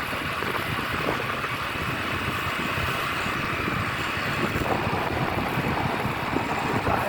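Steady driving noise of a road vehicle on the move, engine and tyre noise with no horn sounding.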